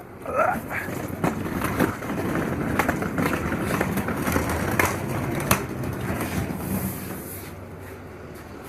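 Hard wheels of a hand cart or dolly rolling over pavement, a steady rattling rumble with a few sharp knocks, easing off about a second before the end.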